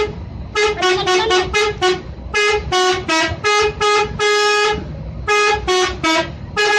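Multi-tone 'telolet' bus horn playing a tune of short toots in changing pitches, with one longer held note about halfway through.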